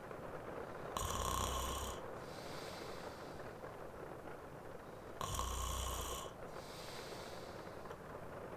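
A man snoring in his sleep: two rumbling snores about four seconds apart, each about a second long, with a softer breath out after each. A steady hiss of rain runs beneath.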